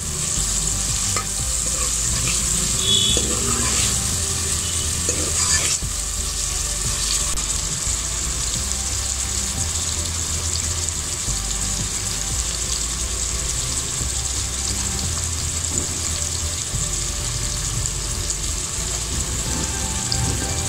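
Tomatoes, green chillies and onions sizzling in hot oil in an aluminium pot. A steel ladle stirs and scrapes the pot for the first six seconds or so, then the frying goes on as a steady sizzle.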